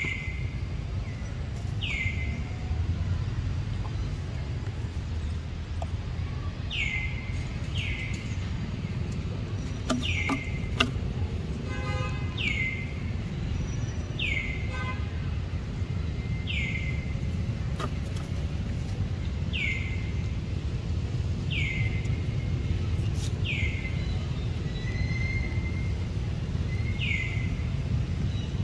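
A bird repeats a short call that slides down in pitch, every second or two, over a steady low rumble.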